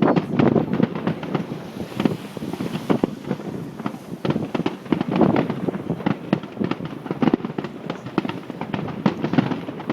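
Fireworks display: a rapid, irregular stream of bangs and crackles from bursting aerial shells, with heavier volleys at the start and about five seconds in.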